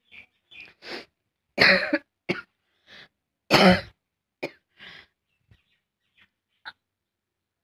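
A person coughing and clearing their throat in a string of short bursts, with two loud, harsh coughs about two seconds apart and smaller coughs around them, tailing off after about five seconds.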